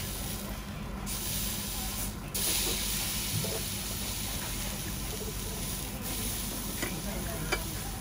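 Thin slice of wagyu sizzling on a wire-mesh grill over a charcoal fire, a steady hiss that dips briefly about a second in and comes back stronger. A couple of light clicks near the end as metal tongs fold the slice on the grill.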